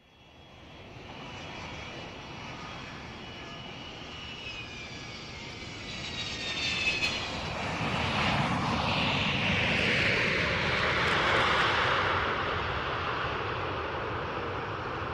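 Jumbo jet landing: the engines' high whine slides down in pitch as the plane comes in, the tyres squeal briefly at touchdown about seven seconds in, then a louder rushing roar swells and slowly eases off.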